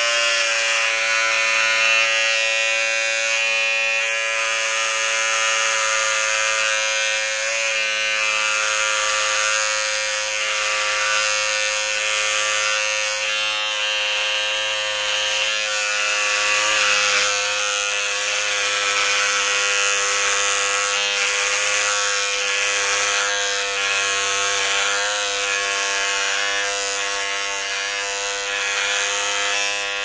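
Electric beard trimmer running continuously with a steady buzz, its pitch wavering slightly now and then.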